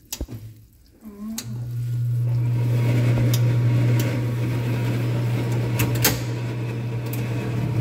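Kitchen range hood exhaust fan switched on with a click: a steady low hum and rushing air start about a second and a half in, build over the next second, then run on steadily.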